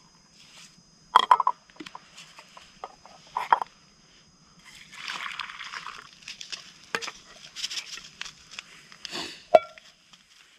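Metal camp cookware being handled: sharp clinks of pots and a lid about a second in and again around three and a half seconds in, liquid sloshing in a pot for a second or two around the middle, and a final clink that rings briefly near the end.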